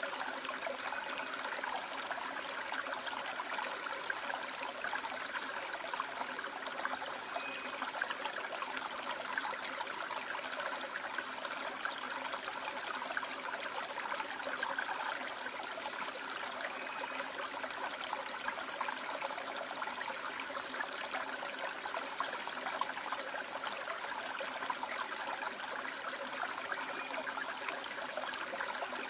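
Stream water flowing and splashing over rocks in a gorge: a steady rush of water.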